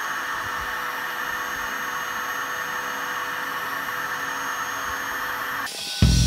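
Compact router on an MPCNC machine spinning its carving bit as it cuts a 3D relief into a wood board, a steady whir. It cuts off near the end, and loud music with drums starts.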